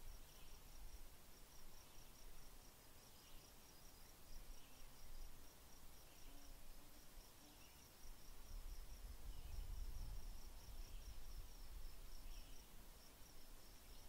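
Faint outdoor insect chirping: a short high pulse repeated steadily about four to five times a second, with fainter, lower chirps about every second and a half. A soft low rumble rises about eight seconds in.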